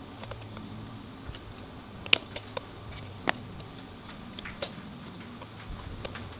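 Scattered light clicks and taps, the sharpest about two seconds in, over a faint low steady hum.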